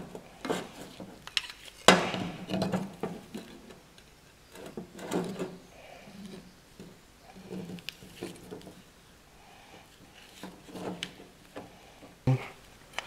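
Metal clinks, knocks and scrapes of drum brake shoes, return springs and the adjuster strut being handled and fitted together on a workbench, with a sharp clank about two seconds in and another near the end.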